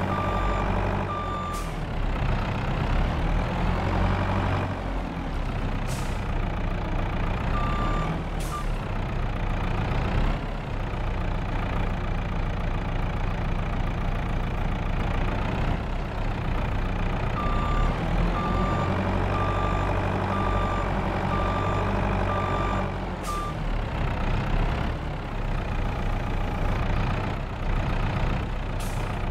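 Truck engine running while manoeuvring, its speed rising and falling a few times. A reversing beeper sounds in runs of regular high beeps, and a few short sharp noises, likely air brakes, cut in.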